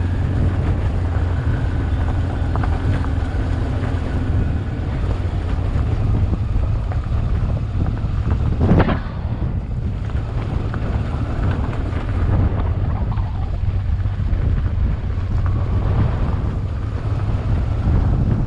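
Honda Transalp XL600V's V-twin engine running steadily under way, with wind noise on the microphone. A short, loud thump about halfway through.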